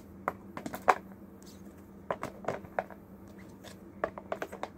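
Clicks and taps of rigid plastic card top loaders knocking against one another as sleeved trading cards are flipped through a stack, coming in small quick clusters.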